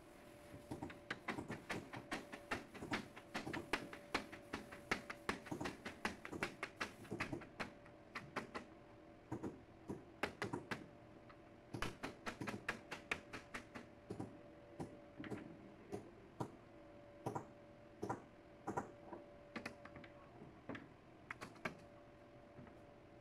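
Faint, irregular light taps and knocks from hand work on a melamine board, several a second at first and sparser after about eight seconds, over a faint steady hum.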